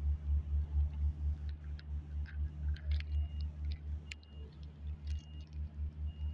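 A motor vehicle's engine running at idle, a low even throb of about four pulses a second. Faint clicks and rustles of dry grass from the cats' scuffle come through in the middle, and short faint high beeps sound about once a second in the second half.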